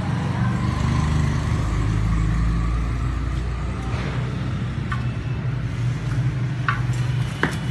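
A motor runs steadily in a low drone. A few light sharp clicks come in the second half, typical of the metal baking rings knocking as dough balls are set into them.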